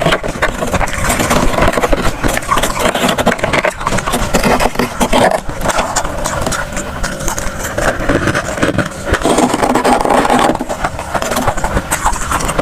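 Freezer frost crunching, a dense, irregular run of crisp crackles and scrapes.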